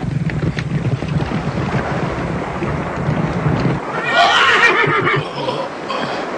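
A horse whinnies loudly about four seconds in, a wavering, high cry over a steady rumbling noise. Fainter neighing follows near the end.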